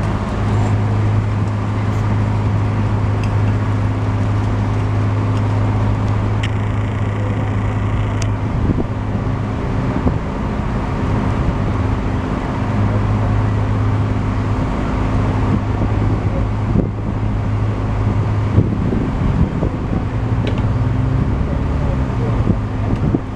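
Steady low drone of an idling heavy engine with road traffic noise.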